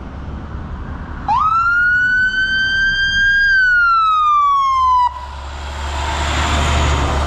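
An emergency vehicle siren gives a single wail about a second in: it rises quickly, then falls slowly over about four seconds and cuts off abruptly. A low vehicle rumble and road noise follow.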